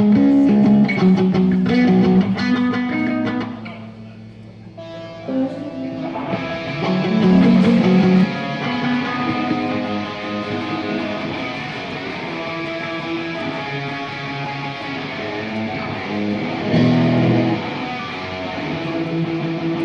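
Amplified electric guitar playing chords and notes during a band's sound check. It is loud at first, drops back about four seconds in, then plays on steadily.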